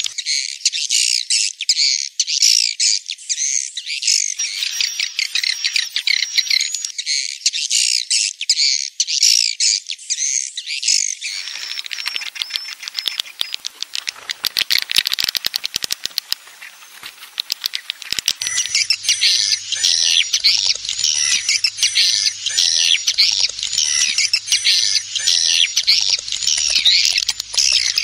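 A swiftlet lure-call recording, mixed from roosting-house sounds: many swiftlets twittering in dense, overlapping high chirps. Around the middle the chirping thins into a sparser run of sharp clicks, and the dense chirping returns about two-thirds of the way in.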